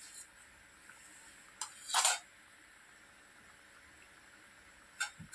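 Dal simmering in a steel kadai on a gas stove: a faint steady hiss, broken about two seconds in by a short, loud noisy burst, and by two light clicks near the end.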